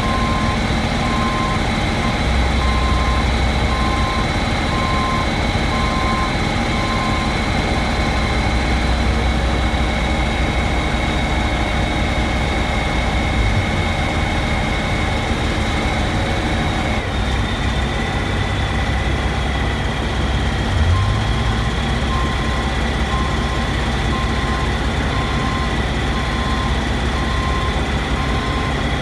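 Heavy construction equipment (crane and aerial lift) running steadily while hoisting a large glass panel, with a low engine rumble and a steady high whine that drops slightly in pitch about two-thirds of the way through. A warning beeper sounds about once a second in the first quarter and again in the last quarter.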